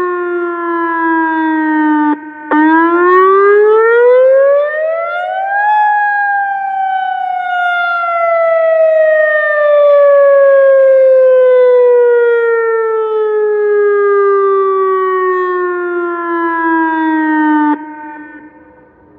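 ATI HPSS-32 electronic speaker-array warning siren sounding its wail tone. The pitch falls, breaks off briefly about two seconds in, rises for a few seconds, then falls slowly for about twelve seconds. The tone cuts off abruptly near the end as the three-minute test finishes, and the sound dies away over about a second.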